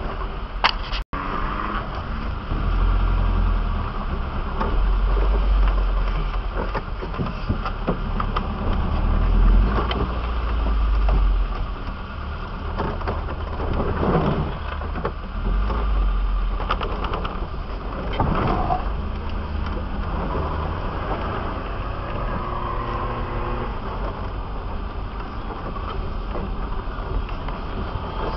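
Off-road 4x4's engine running at low speed, its deep rumble swelling and easing with the throttle, with occasional knocks and rattles.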